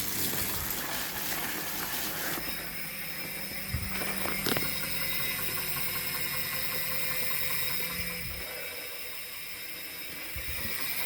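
Wahoo Kickr smart trainer being pedaled hard, its flywheel and chain drivetrain running with a steady whir. The low hum falls away about eight seconds in.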